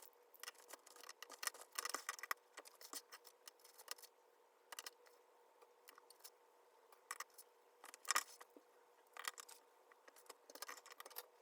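Faint, irregular light clicks and taps, a few in quick clusters, as of small hard objects being handled.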